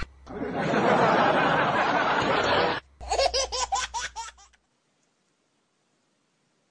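A loud noisy burst lasting about two and a half seconds, then a person laughing in quick 'ha-ha' pulses that cut off about four and a half seconds in.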